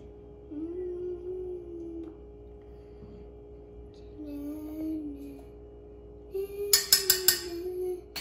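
A slow tune hummed in long held notes, in three phrases. About two-thirds of the way in comes a quick run of sharp clinks from a metal spoon knocking against a glass jar.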